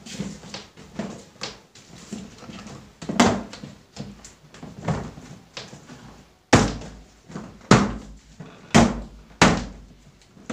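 Plastic storage cabinet being handled: its hinged plastic doors swung open and shut and the top pressed down, giving a string of plastic knocks and clacks. The four loudest come between about six and a half and nine and a half seconds in.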